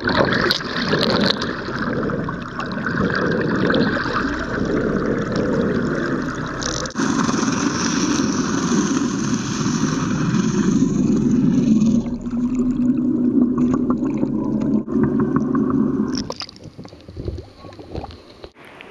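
Water rushing and gurgling around a camera held underwater beside a moving boat, with the boat's engine hum underneath. A steady low engine drone stands out in the second half, and the sound drops off sharply a few seconds before the end.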